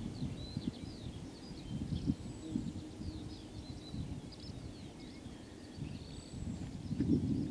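Outdoor countryside ambience: many birds chirping over a low, uneven rumble.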